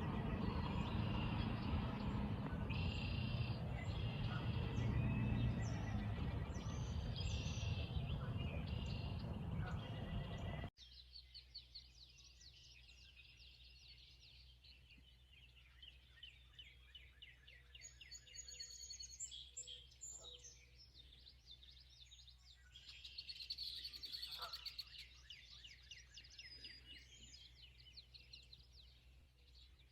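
Outdoor ambience with birds singing. For about the first ten seconds a loud, even rushing noise with bird calls on top, then an abrupt cut to a much quieter scene of birdsong in quick repeated trills, swelling twice.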